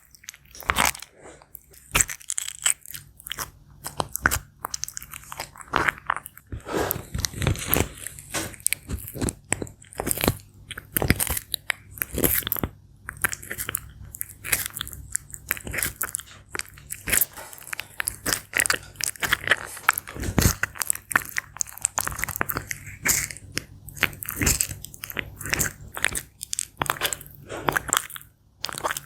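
Sulcata tortoise biting and chewing crisp star fruit: a rapid, irregular run of wet crunches and snaps as its beak shears off and mashes pieces.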